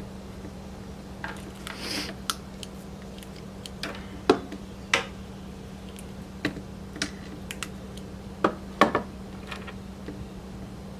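Small cutters snipping the folded-back braid wires of a coaxial cable: a dozen or so short, sharp clicks at irregular intervals.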